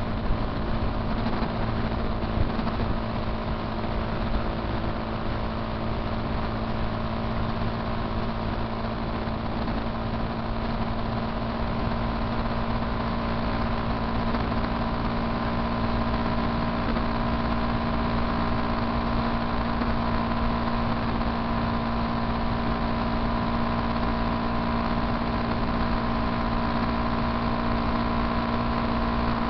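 Motorcycle engine running at a steady cruising speed with wind and road noise, heard from the moving bike.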